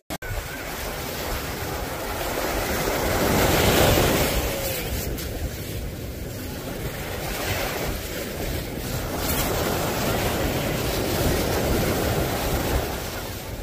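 Ocean surf washing onto a sandy beach in slow swells, loudest about four seconds in, with wind buffeting the microphone.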